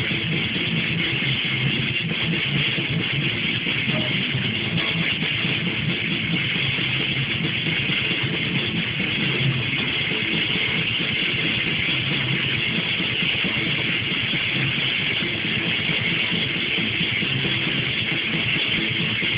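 Metal music: strummed, distorted electric guitars in a dense, unbroken wall of sound at a steady level.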